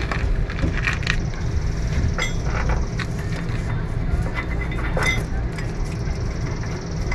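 Scattered light metal clinks and taps of bolts and a wrench as a suspension mounting plate is bolted up under a motorhome's frame, over a steady low rumble.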